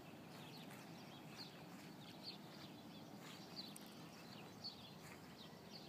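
Faint, scattered bird chirps, short high calls every second or so, over a quiet outdoor background hush.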